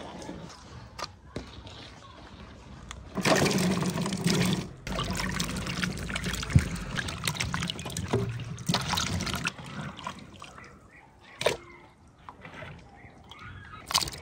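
Water sloshing, splashing and trickling as hands stir and lift plums in a bowl of water to wash them, loudest in a few stretches of a couple of seconds each.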